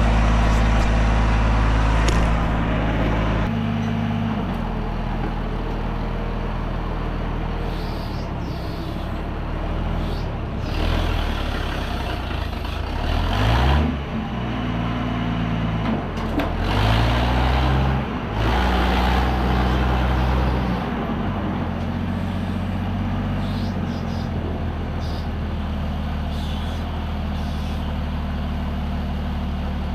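A vehicle or machine engine running steadily, its speed rising and falling a few times in the middle before settling back.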